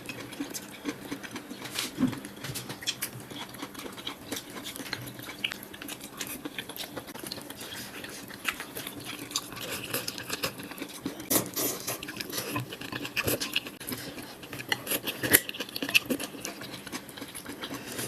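Irregular light clicks and taps, a few sharper than the rest, over a faint steady low hum.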